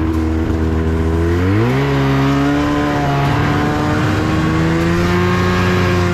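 Yamaha snowmobile engine under throttle, driving out of slush where it had been stuck. The engine runs steadily, revs up about a second and a half in, then holds at the higher speed.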